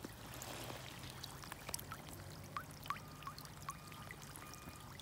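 Shallow river water trickling at the edge of a rock bed, faint, with a few small water-drop plinks.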